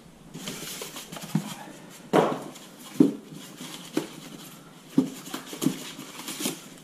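Styrofoam packing insert being handled and pulled from a cardboard box, rubbing and squeaking, with about seven sharp knocks and creaks spread through.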